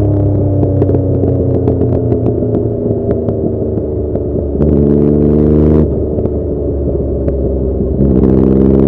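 Yamaha XSR900's inline-three engine through a Cobra full exhaust system while riding. The revs fall slowly with a crackle of pops from the exhaust. The engine swells louder and higher for about a second around the middle, drops back, and climbs again as the throttle opens near the end.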